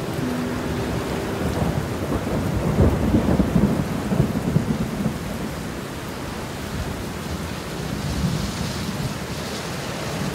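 Steady heavy rain with a rumble of thunder that builds about two and a half seconds in and dies away by about five seconds.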